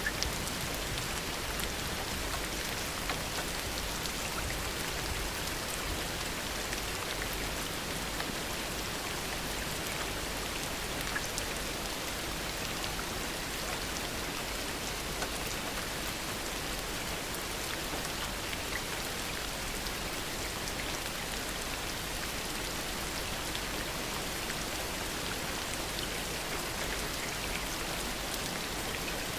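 Heavy rain falling steadily: an even hiss with scattered sharper taps of single drops.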